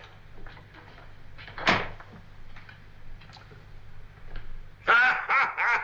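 A wooden plank door shutting with a single knock about a second and a half in, over a low steady hum. Near the end a man breaks into loud laughter.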